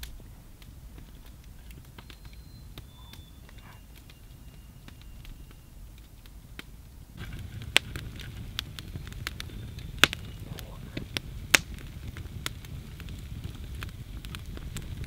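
Low, quiet outdoor background with a few faint thin bird whistles; then, about seven seconds in, a wood fire crackling, with scattered small snaps and three loud sharp pops.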